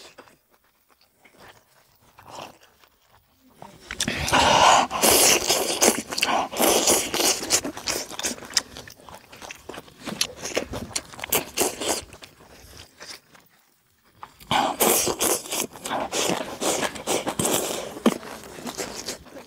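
Loud eating sounds, slurping and chewing a mouthful of spicy food with rice from a bowl, with chopsticks clicking on the bowl. The sound begins about four seconds in and comes in two long stretches, with a short pause between them.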